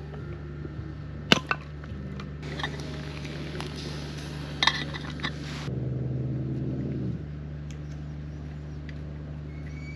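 An axe blow splitting firewood, a sharp knock about a second in. Then food sizzling over a campfire, with the metal lid of the cooking pot clinking about halfway through.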